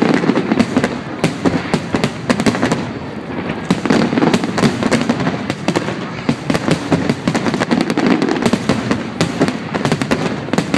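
Aerial fireworks display: dense, continuous crackling and popping of bursting shells, many reports overlapping, with a brief lull about three seconds in.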